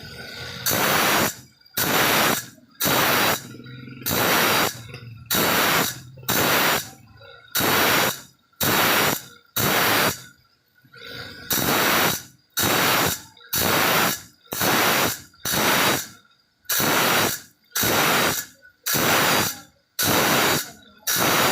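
A file rasping across the teeth of a hand saw in steady forward strokes, about one a second, with a short pause between each stroke.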